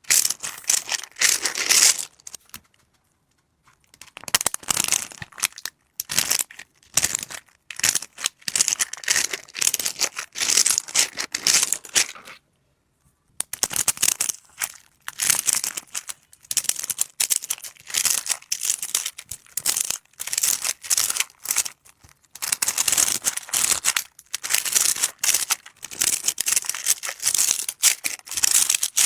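Crinkling plastic as a squishy toy is squeezed and handled, in quick irregular bursts of crackle. There is a short pause about two and a half seconds in and another around thirteen seconds.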